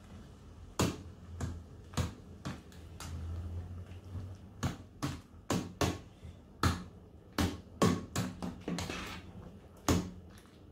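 Metal ladle knocking against the sides of a stainless steel stockpot while stirring soup, a string of about fifteen irregular clinks, one or two a second.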